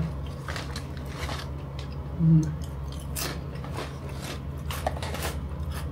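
Ridged potato crisps being chewed close to the microphone: scattered, uneven crunches, with a brief low vocal hum about two seconds in.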